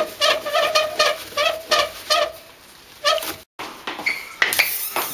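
Toilet paper being pulled in quick tugs from a jumbo-roll dispenser, the turning roll squeaking about four times a second. After a short break near the end come a few clicks and knocks.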